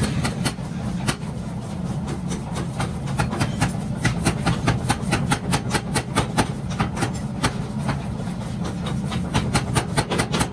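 A 75 kg power hammer forging a red-hot pickaxe blank, striking it in a fast run of sharp blows, several a second, over a steady low hum.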